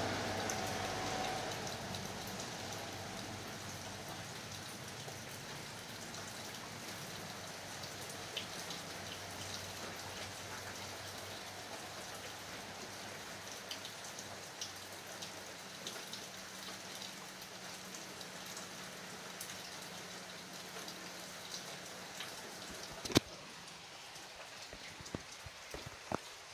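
Steady rain falling, with scattered louder drops ticking on a surface. A low hum fades away over the first couple of seconds, and about three seconds before the end a single sharp knock stands out as the loudest sound.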